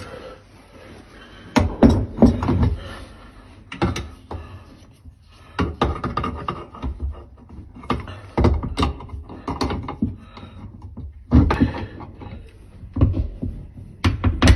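Pliers and a spanner clicking and knocking against the brass fitting of an automatic air vent as it is tightened onto copper heating pipe: irregular sharp metallic knocks, some in quick pairs, with short gaps between.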